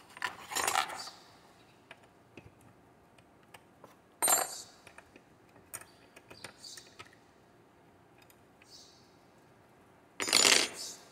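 Metal clinks and clatters of a compact router and its collet wrench being handled while a router bit is fitted, with three louder clatters: about half a second in, about four seconds in, and near the end.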